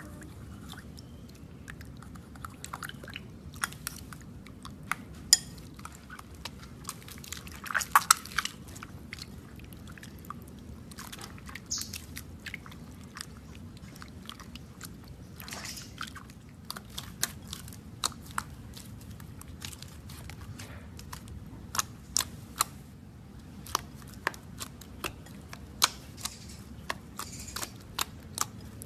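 Slime being stirred and then squeezed and kneaded by hand in a glass bowl, making irregular sticky clicks and pops over a steady low hum. The clicks are loudest in a cluster about eight seconds in.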